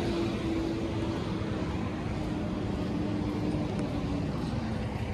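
An engine running steadily, with a steady hum that fades about two-thirds of the way through.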